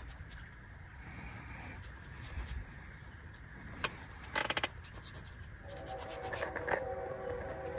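Quiet rustling and scratching of small movements and handling, with scattered clicks and a short run of clicks about four and a half seconds in. A faint pitched sound comes in during the last two seconds.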